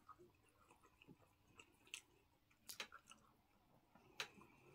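Faint chewing and mouth sounds of people eating with their hands, with a few short sharp smacks or clicks spread through.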